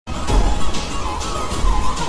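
Music with a steady beat and heavy bass, with a wavering sung melody over it.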